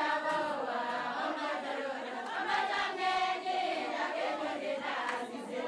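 Choral singing as opening music: several voices holding and shifting sung notes together.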